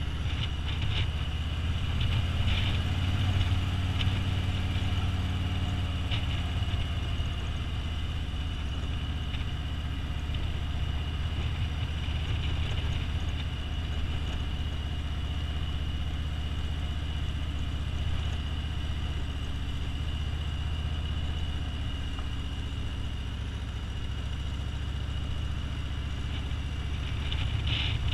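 Touring motorcycle's engine running steadily under way at an even road speed, a continuous low hum heard from the rider's seat, with a thin steady high tone above it.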